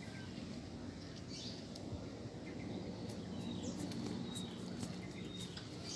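Steady low outdoor background noise with faint bird chirps, and a few light ticks in the second half.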